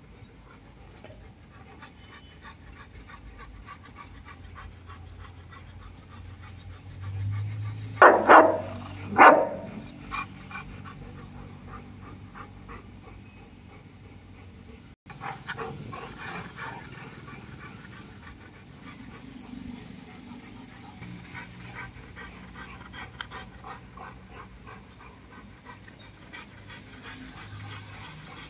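Dogo Argentino dogs panting steadily, with a short burst of loud barks about eight to nine seconds in.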